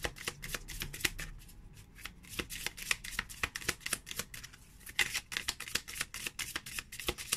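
A deck of new, somewhat stiff matte-finish oracle cards being shuffled by hand: a quick run of card-on-card clicks and flicks, thinning briefly about one and a half seconds in, then picking up densely again.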